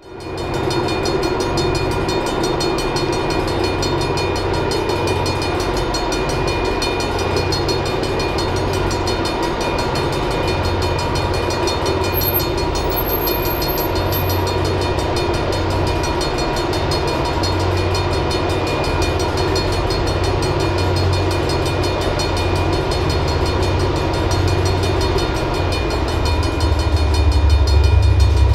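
Diesel freight locomotives approaching, a steady low engine rumble that grows louder near the end as the five-unit consist draws close. Steady high-pitched tones hang over it throughout.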